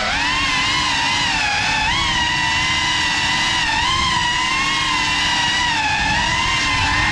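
Whine of a CineLog35 cinewhoop's brushless motors and ducted propellers in flight, with a rushing of prop wash underneath. The pitch dips right at the start and lifts again, then holds fairly steady, rising and falling slightly with the throttle.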